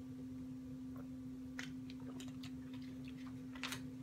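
A steady low hum, with a few faint light clicks from small items being handled.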